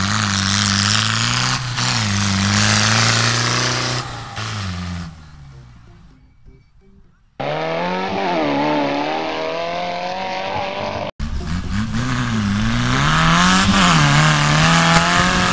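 Small tractors' engines running hard in a sprint, the engine note rising and falling as they accelerate. About five seconds in the sound fades away, then another tractor's engine takes over.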